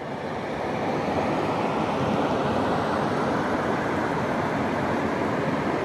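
Steady rush of a river's flowing water, an even noise with no pitch.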